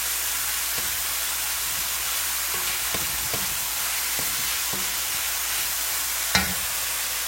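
Diced chicken breast sizzling in hot oil in a pan, a steady hiss as it cooks. A utensil knocks against the pan a few times while stirring, with one louder knock near the end.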